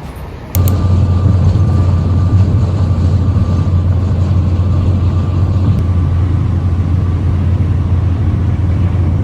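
Steady, loud, low rumble of a moving vehicle, with a faint steady whine above it. It starts abruptly about half a second in.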